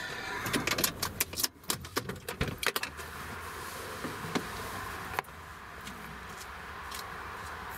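Camera being handled and moved: a rapid run of clicks, knocks and rattles for about three seconds. After that, a steady hum of motorway traffic with a few single ticks.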